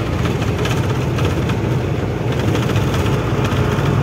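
Loaded truck's engine running steadily on the move, a continuous low drone with road noise.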